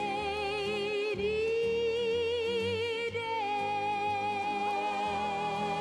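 Orchestral song playing from a vinyl record: a long held note with vibrato over sustained chords, giving way about three seconds in to a steadier, higher held note.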